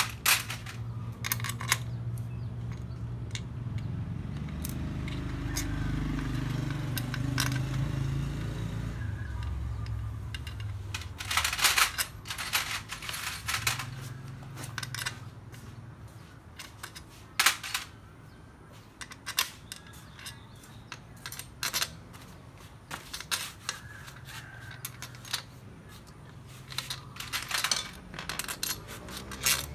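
Metal engine parts and hand tools clinking and tapping in irregular bursts during motorcycle engine reassembly, with a low rumble in the first ten seconds or so that fades away.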